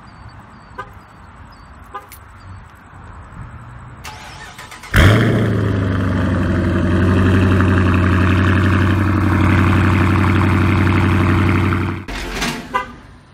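Dodge Charger R/T's 5.7-litre Hemi V8 cold-starting through an exhaust with the mid mufflers deleted. It catches suddenly and loudly about five seconds in, then settles into a steady high cold idle until near the end.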